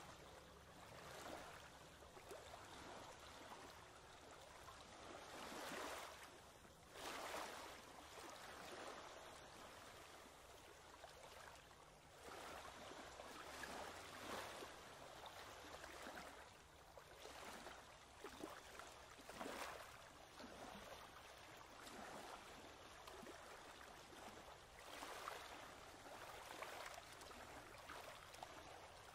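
Faint, steady rush of moving water that swells every few seconds.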